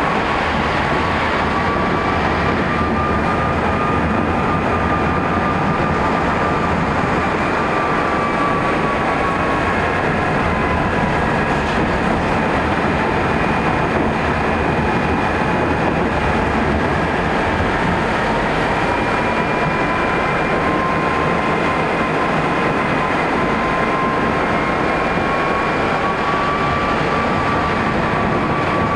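Tram running along the street, heard from inside the car: a steady rolling rumble and rattle with a thin whine that slowly drops in pitch and rises again.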